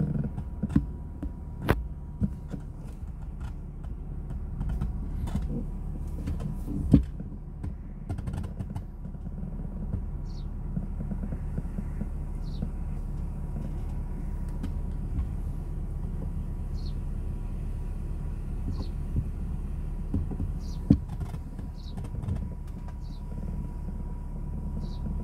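Steady low rumble with scattered sharp knocks and clicks from handling a rifle-mounted scope camera, under a faint steady high tone. From about ten seconds in, a bird gives short high chirps every second or two.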